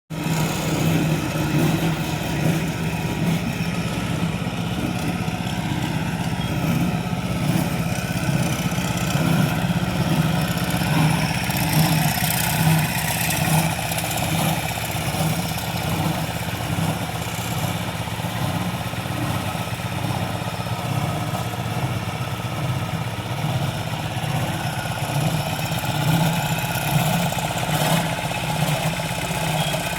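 Engine of a piece of construction equipment running steadily, with slight rises and dips in level.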